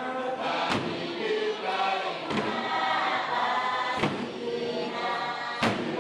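Background music: a choir singing, with a sharp drum-like beat about every second and a half.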